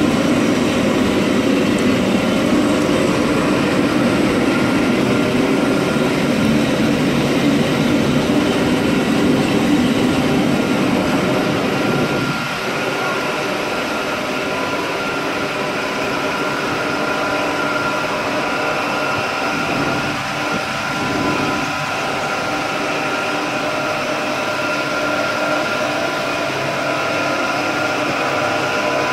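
Steady running noise of pyrolysis plant machinery: a continuous low rumble with several steady whining tones above it. The rumble drops a little about twelve seconds in.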